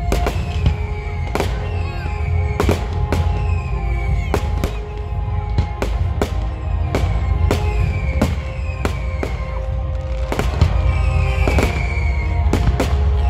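Fireworks display: aerial shells bursting in a rapid, irregular string of bangs, about two a second, over loud music with sustained notes.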